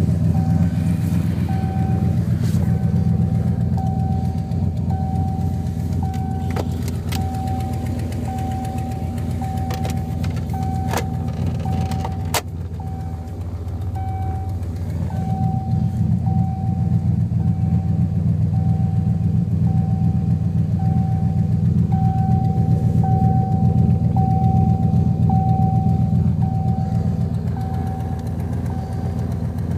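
Turbocharged 1990 Ford Mustang LX engine idling steadily, heard from inside the car. The owner believes it has an exhaust leak where the 3-inch exhaust bolts to the turbo downpipe. A short electronic chime repeats about every 0.7 seconds, with a few sharp clicks.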